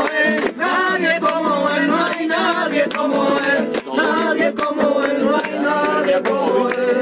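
Several men singing a worship song together in flamenco style, with a nylon-string acoustic guitar strummed and hands clapping in time.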